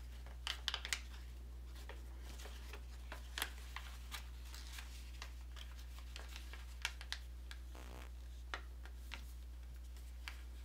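Origami paper crinkling and rustling in short scattered crackles as hands fold and crease it into inside reverse folds, with a steady low hum underneath.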